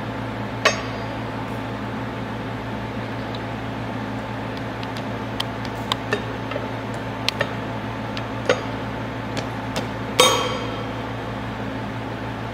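Scattered clicks and knocks as a rotor removal tool pushes a graphite thrust bearing down into the casing of an HPB 90 energy-recovery turbocharger. The loudest is a ringing knock near the end. A steady low hum runs underneath.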